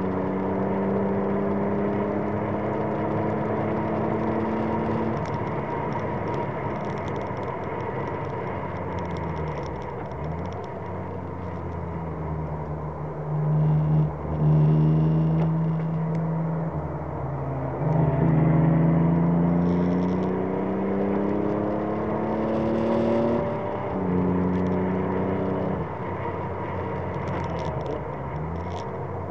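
Alpine A310's V6 engine heard from inside the car, driven hard around a circuit. Its pitch climbs and breaks at several gear changes. It drops and changes gear as the car slows for a corner about halfway through, is louder there, then pulls up through the gears again.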